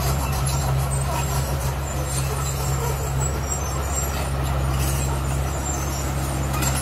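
Heavy diesel engine running steadily at a constant speed, a deep even drone.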